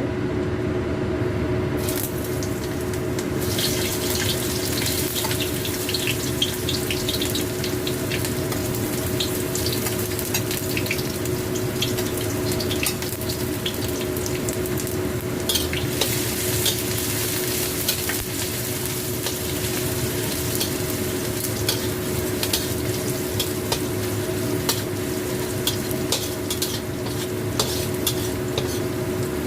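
Stir-frying in a pan: oil sizzling while a spatula stirs and scrapes, with many short clicks of metal against the pan. A steady low hum runs underneath.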